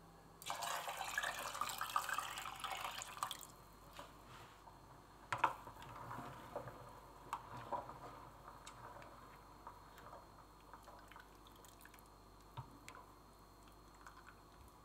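Chicken broth poured from a glass bowl into a saucepan, a steady liquid rush lasting about three seconds, followed by drips and scattered light knocks and clinks, the sharpest one about five seconds in.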